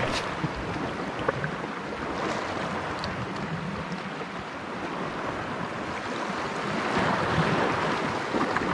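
Sea surf washing steadily on a rocky shore, with wind on the microphone; the wash swells a little about seven seconds in.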